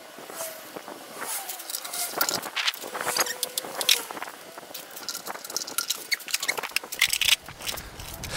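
Hand tools working on the bolts of a car gearbox's bell housing: irregular sharp metallic clicks, clinks and knocks, several of them close together, as the gearbox is being split from the engine.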